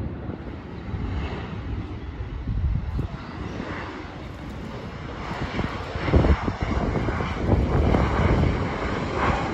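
Jet airliner's engines rumbling steadily, growing louder in the second half.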